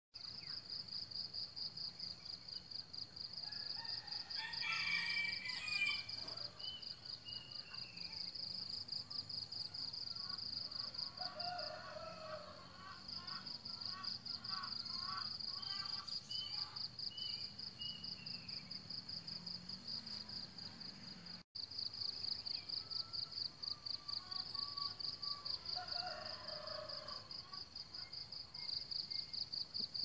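Insects trilling steadily outdoors: a high, fast-pulsing trill that drops out for an instant about two-thirds of the way through. Birds call now and then over it, in short chirps and brief phrases.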